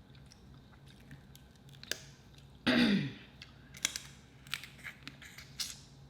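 Close-miked eating of a seafood boil: scattered sharp clicks and cracks of shellfish shell being handled and broken, with chewing, and one louder slurp about three seconds in.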